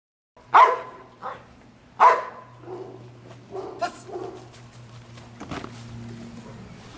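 A large protection-trained dog barking at a man in protective gear during an attack drill. There are two loud barks in the first two seconds, then quieter barks, with a sharp crack near the middle.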